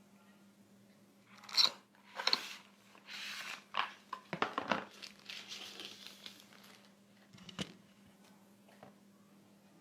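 Smartphone packaging being handled and opened: crinkling and tearing of plastic wrap and paper, with a few sharp clicks and taps from the box and phone, in irregular bursts over several seconds and one last sharp tap near the end.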